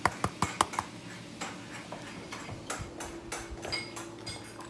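Plastic spice shaker shaken hard over a pot, giving a quick run of sharp clicking rattles in the first second. After that come softer, scattered rustles and knocks.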